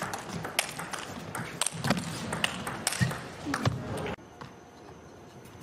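Table tennis rally: the ball clicking sharply and irregularly off the bats and the table in quick exchanges over an arena background. The sound drops away suddenly about four seconds in.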